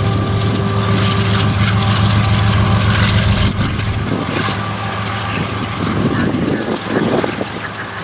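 GE ES44AC diesel-electric locomotive's V12 engine running as the unit passes and moves away, a deep, steady drone. The drone drops off sharply about three and a half seconds in, leaving the lower rumble of the train rolling off.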